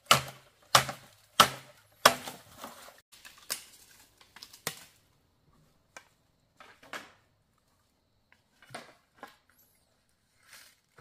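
Wood being chopped with a blade: four loud, sharp strikes about two-thirds of a second apart, then weaker blows that thin out to a few scattered faint knocks.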